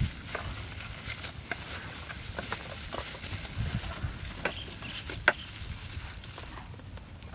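Scattered small clicks and crinkles of hand food preparation: a thin plastic bag being squeezed and handled, with one sharp click about five seconds in.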